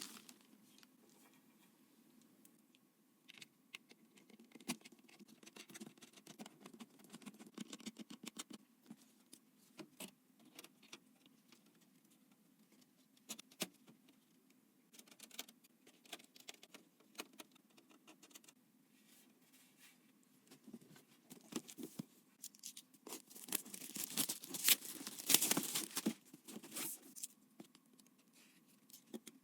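Scattered small clicks, taps and light rustling of computer parts being handled and fitted during a PC build, with a few seconds of louder, denser rustling near the end.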